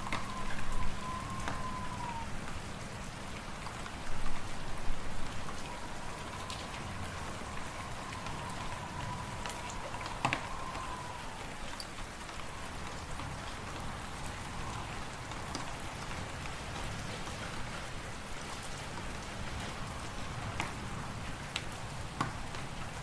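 Wood fire crackling in a fireplace, with scattered sharp pops, over a steady rush of storm wind. A faint wavering whistle comes and goes twice, and the sound swells briefly near the start and again about four seconds in.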